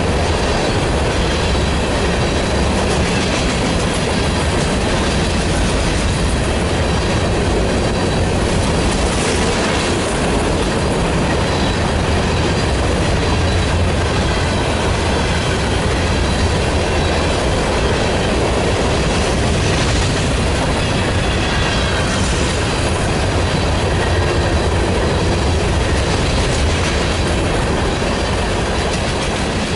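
Covered hopper cars of a grain train rolling past, their steel wheels rumbling and clacking over the rail joints. A faint squeal of wheels comes in about twenty seconds in.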